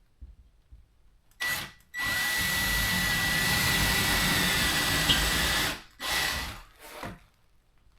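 Power drill driving a screw: a brief burst, then a steady run of nearly four seconds with a constant motor whine, then two short bursts near the end.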